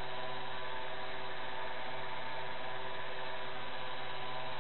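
Bicycle on an indoor trainer, its rear wheel spinning steadily as the rider pedals at an even pace: a constant whirring hum of several steady tones over a hiss.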